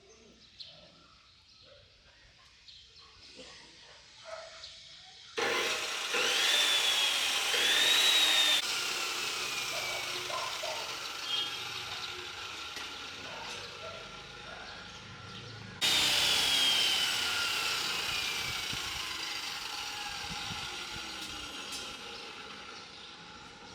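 A power cutting tool runs in two spells, each starting suddenly with a loud hissing cut over a high motor whine. In the second spell the whine falls slowly in pitch as the tool winds down.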